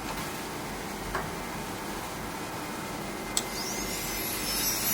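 A click, then a jeweller's rotary handpiece motor spins up about three and a half seconds in, its whine rising in pitch and settling into a high steady whine, with the dotting needle turning in the handpiece.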